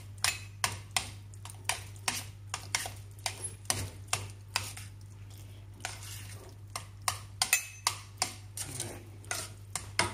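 Metal measuring cup stirring a thick corn and egg-yolk mixture in a steel pot, clinking and scraping against the pot's sides a few times a second, with a brief lull about halfway through.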